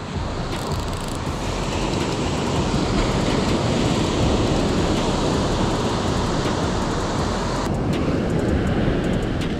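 Steady rush of surf breaking on a sandy beach, mixed with wind buffeting the microphone; it grows a little louder through the middle.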